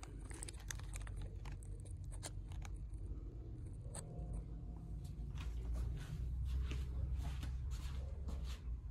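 Handling noise on a phone's microphone: a cloth sleeve rubbing and brushing against it, heard as a muffled low rumble with many scattered clicks and knocks.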